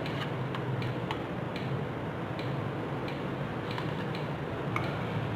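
Light, irregular clicks and taps, roughly two a second, from paper lens envelopes being opened and plastic spectacle lenses being handled and set down on a table. A steady low hum runs underneath.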